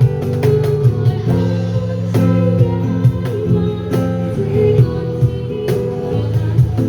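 Live band music: guitar over a steady drum beat.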